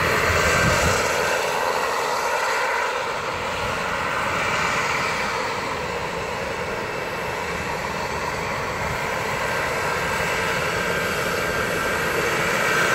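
Light turbine helicopter flying low and slow at close range: steady rotor and turbine noise with a thin high whine. It eases off a little mid-way, then grows louder again near the end as the helicopter comes closer.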